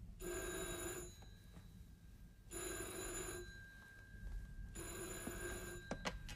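Telephone ringing three times, each ring about a second long with a short pause between. A couple of sharp clicks follow near the end.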